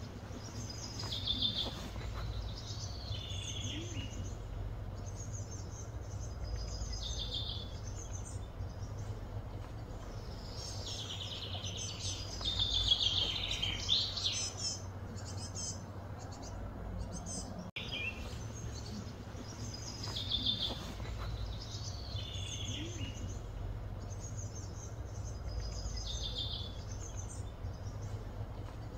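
Wild birds singing and chirping in short phrases that recur every couple of seconds, busiest and loudest a little before the middle, over a steady low background rumble.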